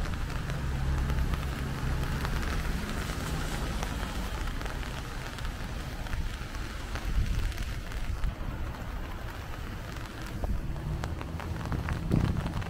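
Steady rain pattering on an umbrella, with many sharp drop ticks over a low rumble of wind and passing traffic.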